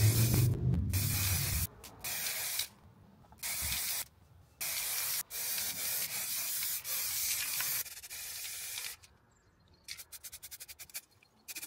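Aerosol spray-paint can spraying white paint in a series of short hissing bursts with brief pauses between them, then a quick run of very short puffs near the end.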